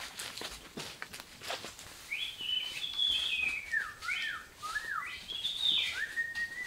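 A bird singing a varied run of clear whistled notes that glide up and down, starting about two seconds in.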